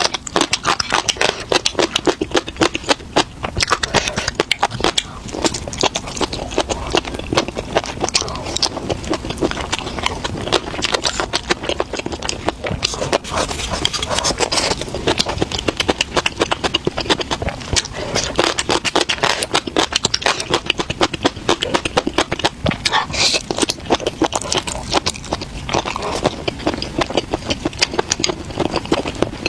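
A person chewing and biting crunchy food close to the microphone, a dense run of crackly crunches throughout.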